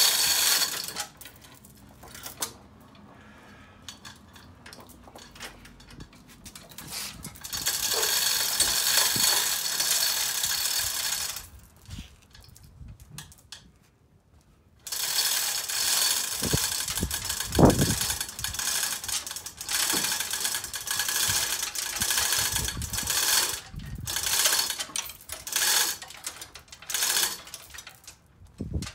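Hand chain hoist being hauled to lift a car engine: the chain rattles through the hoist and the pawl clicks in two long spells of pulling. A few heavier knocks come part-way through the second spell.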